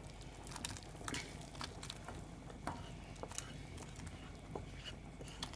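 Fried meatballs in tomato sauce being scraped from a frying pan into a pot of broth: scattered small clicks and soft plops over a faint steady hum.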